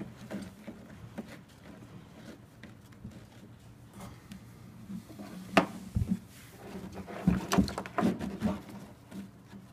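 Handling of a hollow molded-plastic swing seat and its nylon webbing harness strap: soft rustling and scraping as the strap is worked through the seat's slots. A sharp plastic knock comes about five and a half seconds in, then a run of clattering knocks and thuds as the seat is moved.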